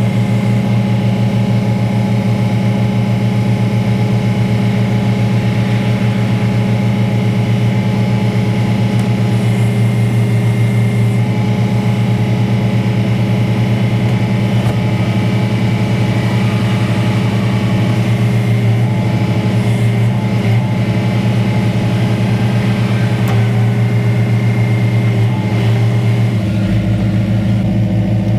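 Diesel engine idling steadily, with a slight change in its low tone near the end.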